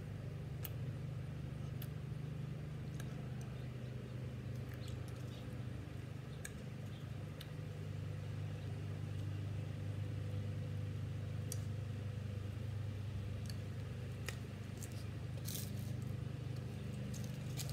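A machine's steady low hum, with a few scattered light clicks and taps, a small cluster of them about fifteen seconds in.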